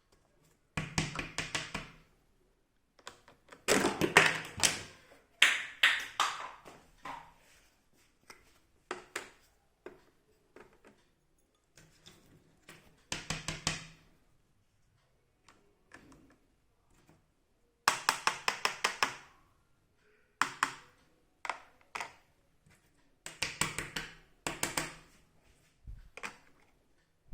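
Small plastic toy pieces being handled, making bursts of rapid clicking and tapping, each one to three seconds long, with short quiet gaps between them.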